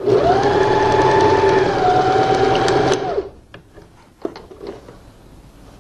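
Electric sewing machine stitching a seam: the motor speeds up as it starts, runs steadily, then winds down and stops about three seconds in. A few light clicks of handling follow.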